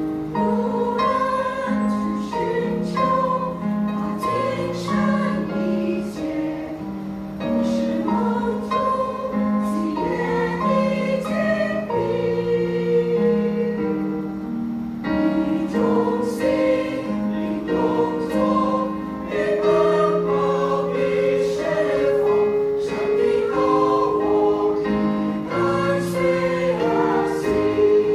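Mixed choir of women's and men's voices singing in parts, several sung notes held together as chords that shift from phrase to phrase.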